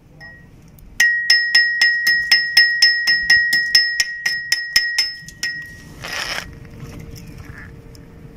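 Metal struck with a hammer about seventeen times in quick, even succession, a little under four blows a second, each blow ringing at the same pitch. Shortly after the blows stop, a brief rushing noise follows.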